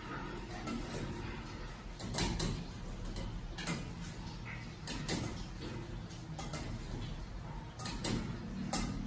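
Aerial silk hammock and its ceiling rigging creaking and rubbing as a child climbs, turns upside down and swings in it, with a few sharp knocks over a steady low room hum.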